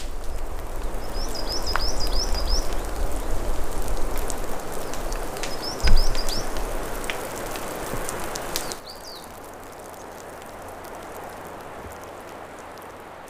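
Steady rain falling in a forest, with a small bird giving two short runs of rapid high chirps in the first half and a single low thump about six seconds in. The rain drops to a quieter patter about nine seconds in.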